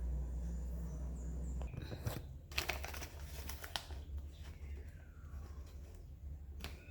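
A low steady hum that stops about a second and a half in, then scattered clicks and light rustling as a printer and its paper are handled.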